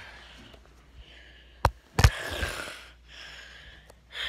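A person sniffing and breathing close to a phone's microphone: a noisy sniff of about half a second just after two sharp clicks, with softer breaths later.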